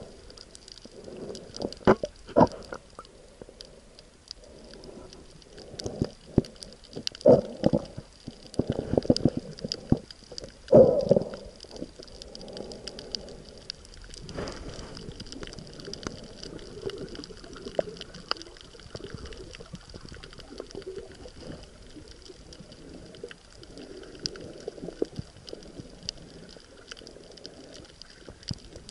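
Underwater sound through a camera's waterproof housing: muffled water sloshing and bubbling in irregular swells, with a few louder surges in the first twelve seconds and a faint crackling throughout.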